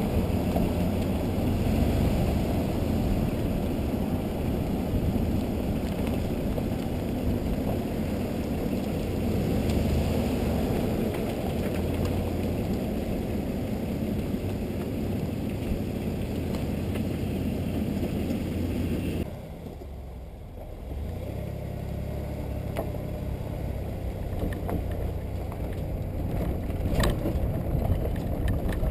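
Wind buffeting and road rumble on a camera mounted outside a moving car. About two-thirds of the way through it cuts to a quieter steady rumble of a boat trailer rolling on a dirt road, with a few knocks and rattles near the end.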